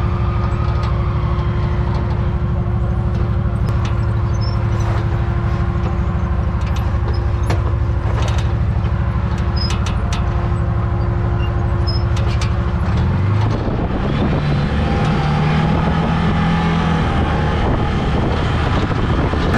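Side-by-side UTV engine running steadily on a rocky trail, with scattered clicks and knocks over it. About thirteen seconds in, the engine note changes and begins to rise and fall as the throttle varies.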